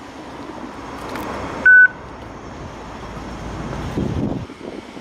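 A single short, loud electronic beep, one steady tone about a quarter second long, comes about a second and a half in over a steady outdoor background noise.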